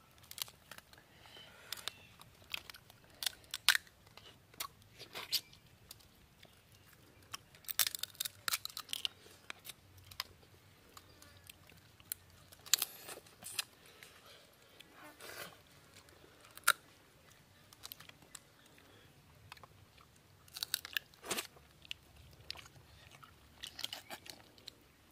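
Cooked crab shell being cracked open by hand and crunched and chewed while eating, heard as irregular sharp cracks and clicks that come in clusters several seconds apart.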